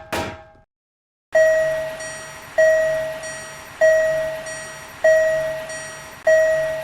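Railroad crossing warning bell, a ringing ding about once every 1.25 seconds with each stroke fading away, starting about a second in. Two short knocks come right at the start.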